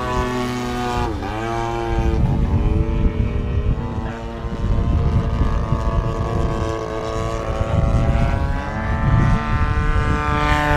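Radio-controlled model airplane in flight, its motor and propeller giving a steady pitched drone. The pitch dips and recovers about a second in, and rises near the end, over a low rumble that runs underneath from about two seconds in.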